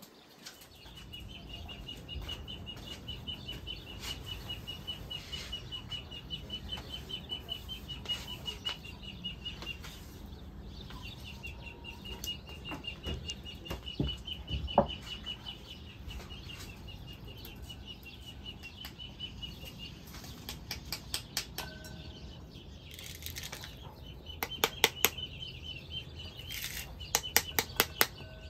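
A bird's high, evenly pulsed chirping trill, breaking off about ten seconds in and again around twenty. A single sharp knock comes midway. In the last few seconds there are quick runs of sharp taps: a knife handle knocking the seeds out of a halved pomegranate into a bowl.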